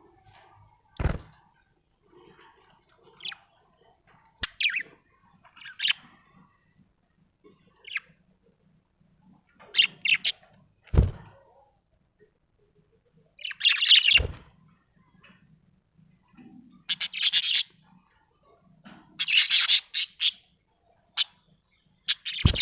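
Budgerigar chirping in short bursts of high chirps and chatter with pauses between, the bursts longer and louder in the second half. A few short low thumps are mixed in.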